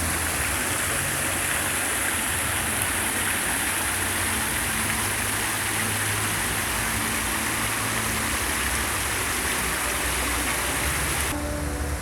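Steady rushing of running water, with a low hum underneath; the high rushing part drops away abruptly about 11 seconds in.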